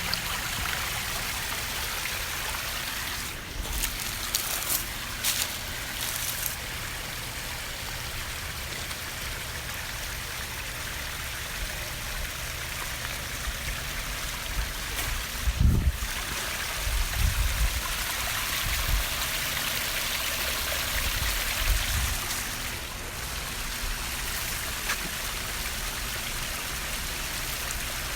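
Koi pond waterfall running: a steady splashing, trickling rush of water. A few low bumps come through in the middle, the loudest about halfway.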